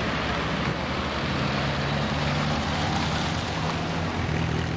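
A motor vehicle's engine running with a low, steady hum under a loud, even rushing noise, such as wind or road noise on a camcorder microphone.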